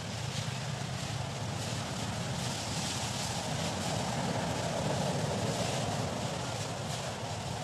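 Steady outdoor background drone: a low hum with a hiss over it, like a distant motor, swelling slightly about four to six seconds in.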